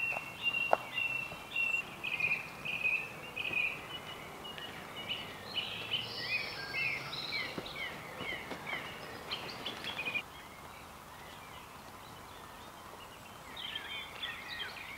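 Wild birds singing, a busy run of short chirps and trills, with a few footsteps on a dirt path near the start. The birdsong drops away suddenly about ten seconds in and comes back more faintly near the end.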